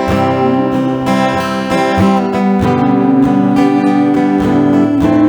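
Worship music with strummed acoustic guitar chords over sustained pad-like tones, between sung lines.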